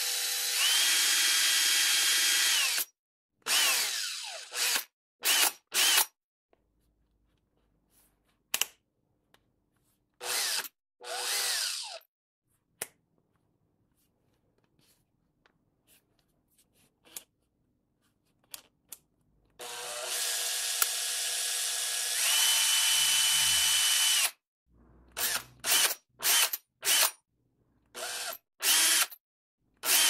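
Makita 18 V cordless drill motor running at different trigger speeds. There are two long runs, each with its whine stepping up to a higher pitch partway through. Between and after them come many short trigger blips, separated by quiet gaps with a few faint clicks.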